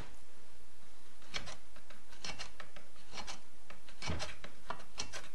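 Short, irregular scraping strokes of a screwdriver working a cord down through a chainsaw's spark-plug hole into the cylinder to lock the piston, in clusters of two or three strokes.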